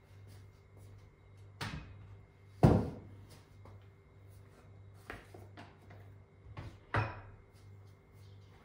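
Several household knocks and clunks from someone handling things in a room, the loudest about two and a half seconds in, over a low steady hum.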